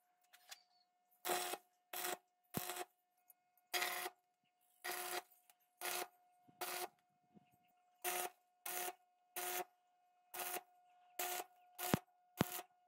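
Stick arc welding on a steel bicycle fork: about fourteen short welds, each a brief burst of electric arc crackle and sputter with silence between. A faint steady hum runs underneath.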